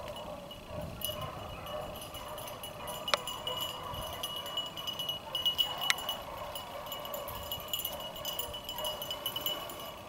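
Pack of beagles baying as they run a rabbit, several hound voices overlapping, with a thin steady high tone underneath.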